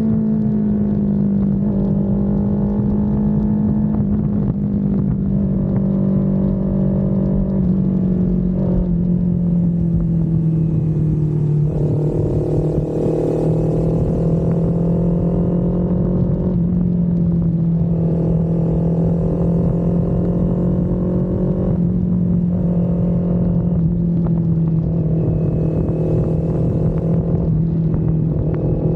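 Kawasaki Z400's parallel-twin engine running under way, its note shifting up and down several times as the throttle is opened and closed.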